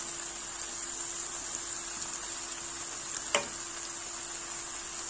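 Diced vegetables and artichoke bottoms sizzling in oil in a pan: a steady gentle hiss with a steady low hum under it, and one sharp click about two-thirds of the way through.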